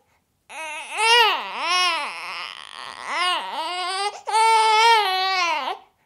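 A baby whining: several short whines that rise and fall in pitch, then a longer, steadier cry starting a little over four seconds in.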